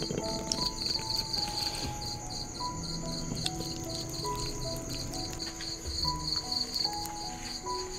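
Crickets chirping in an even pulsing rhythm, about three to four chirps a second, over a steady high insect trill, with soft instrumental background music playing slow sustained notes underneath.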